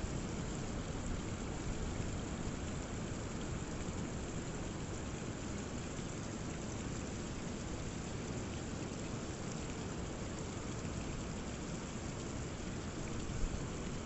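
Rainwater running and splashing down a rock cliff face in thin falls, over the steady low rumble of rough sea surf.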